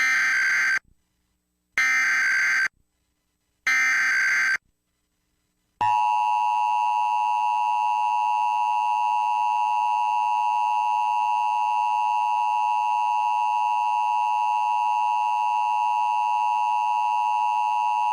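Emergency Alert System tones: three short bursts of SAME header data, each under a second long and about a second apart, then the steady two-tone EAS attention signal sounding without a break.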